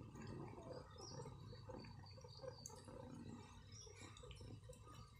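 Faint wet smacking and licking of a cat chewing on a morsel of food.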